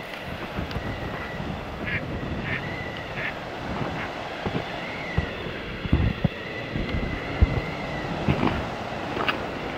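Wind buffeting the microphone with a steady low rumble and occasional thumps, and a faint thin high tone that comes and goes.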